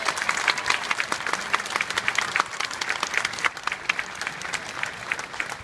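Audience applauding, the clapping thinning and fading out toward the end.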